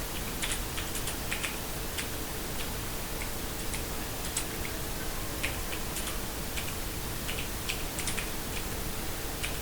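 Typing on a GK61 hot-swappable mechanical keyboard: irregular keystroke clicks, a few a second with short pauses, over a steady background hiss.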